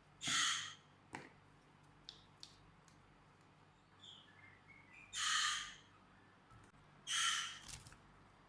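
Three harsh, hissing bird calls, each about half a second long, with a few faint chirps between them.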